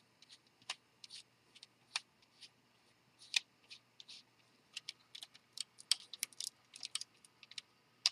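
Hard plastic LEGO pieces clicking and clacking as a small model is handled: a string of irregular sharp clicks, coming thicker in the second half.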